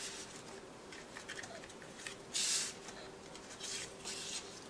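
Paper rustling and sliding as the pages and tags of a handmade paper scrapbook album are handled, with a louder swish about halfway through and another shortly after.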